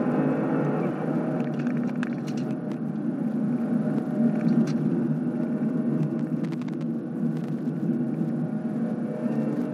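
2016 Cadillac CTS-V's supercharged 6.2-litre V8 at track speed. The engine note falls as the car lifts off from full throttle at about 100 mph and changes down for a corner, then builds again under full throttle near the end. A heavy steady rumble and scattered clicks run under it throughout, from a loose camera mount.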